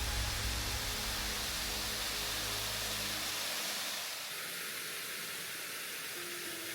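Steady rushing hiss of a waterfall, with a low rumble underneath that drops away a little past halfway; faint music notes come back near the end.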